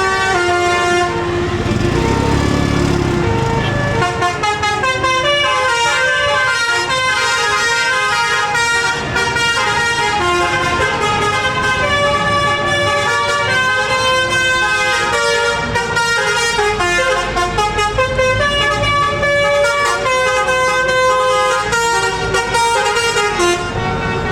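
Multi-tone telolet bus horn playing a long, quick-stepping melody of many short notes, with the bus's engine rumbling low beneath it.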